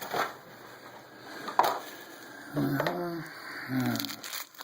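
Cardboard trading-card box and card packs being handled, with light clicks and one sharp crack about a second and a half in. Brief mumbled speech follows near the end.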